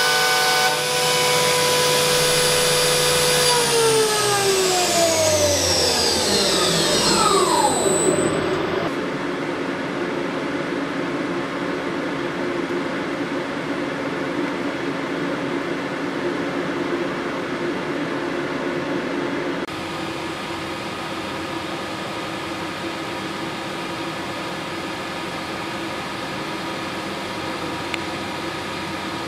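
Optimum OPTImill F 105 CNC milling machine spindle running at steady speed, then spinning down over about five seconds, its whine falling in pitch as it slows. Afterwards a steady machine hum with a few faint tones remains.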